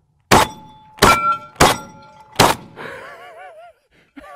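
Four shots in quick succession from an IWI Tavor TS-12 semi-automatic 12-gauge shotgun, about two seconds from first to last, each followed by the clang of a steel target plate that rings on after the shots.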